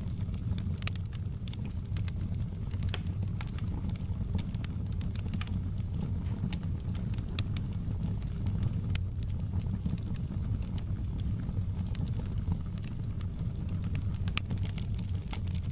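Wood fire burning in a fireplace: logs crackling with irregular sharp pops and snaps over a steady low rumble of the flames.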